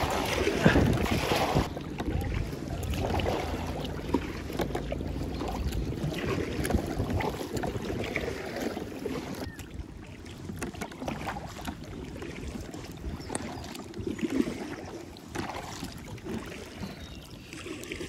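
Kayak paddle strokes splashing in river water, with wind buffeting the microphone, heaviest in the first two seconds.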